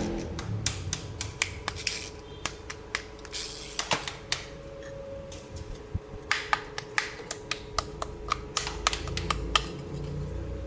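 Hard plastic toy pieces clicking and tapping as they are handled: quick, irregular clicks, some in rapid runs.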